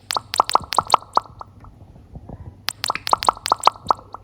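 A food coloring bottle squeezed over a bowl of glue, giving two quick runs of small clicking pops about a second and a half apart.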